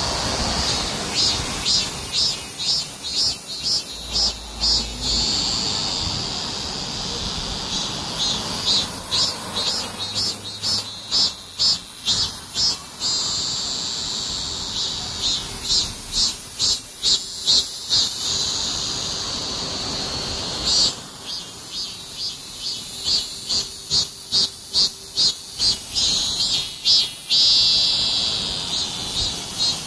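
Cicadas singing: a steady high buzz, with repeated pulsing phrases of about two pulses a second that start and stop every few seconds.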